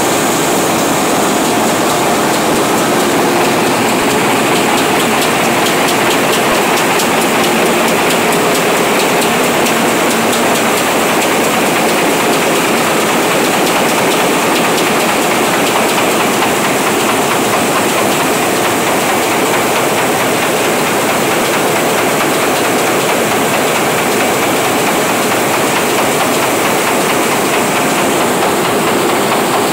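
Goss 4000 web offset printing press running at production speed: a loud, steady mechanical din with a fine, fast clatter.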